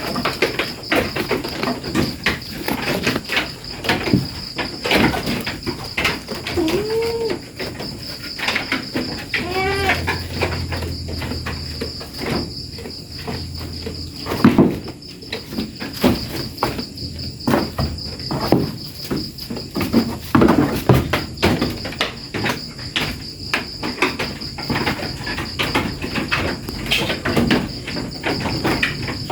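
A steady high insect trill runs under frequent short knocks and scuffles. Two short calls, likely goat-kid bleats, come about 7 and 10 seconds in.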